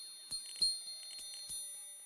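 Ultra-high-pitched tinnitus-relief tone: one loud, steady, very high tone, with fainter high notes that strike in pairs twice.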